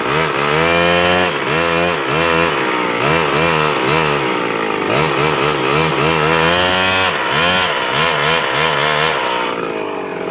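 Small weed-whacker-type engine on a motorized bike being revved over and over, its pitch rising and falling about eight times before it drops back toward idle near the end.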